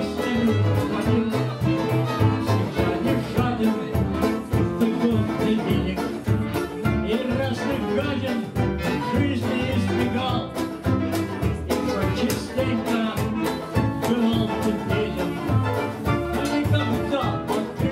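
A small acoustic band playing live: fiddle, clarinet, double bass and plucked strings, with a steady, even bass beat.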